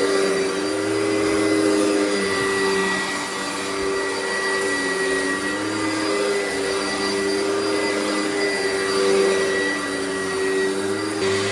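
Oreck XL upright vacuum cleaner running as it is pushed back and forth over carpet: a steady motor hum with a thin high whine, its pitch dipping and rising a little as it moves.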